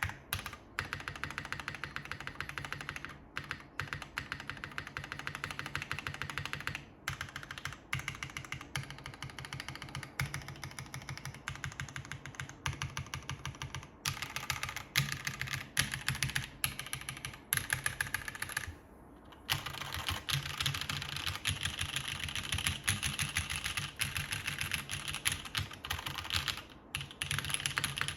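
Continuous rapid typing on a JTD Ovinnik TKL mechanical keyboard with broken-in NovelKeys Cream linear switches, a 5052 aluminium plate in top mount and GMK keycaps: a dense run of keystroke clacks, with a brief pause about nineteen seconds in.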